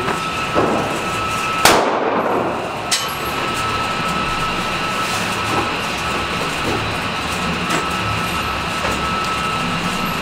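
Gunshots at an indoor shooting range, echoing off the walls: one loud shot about two seconds in, fainter shots just before and after it, and a few scattered weaker cracks later, over steady background noise.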